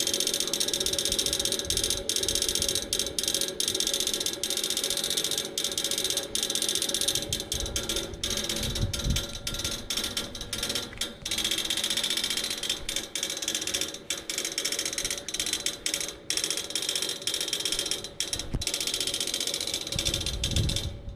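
Outdoor air-conditioner unit clicking rapidly and continuously from inside its housing while its condenser fan stands still, like something trying to crank but not turning on. The clicking persists even after the fan motor was replaced.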